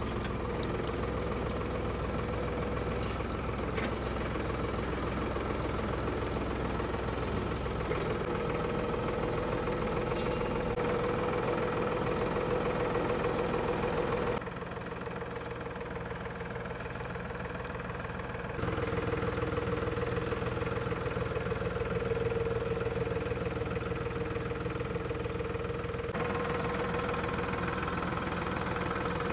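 Tractor engine running steadily at low speed, pulling a homemade carrot lifter through a carrot bed. The sound drops abruptly in level about halfway and comes back a few seconds later.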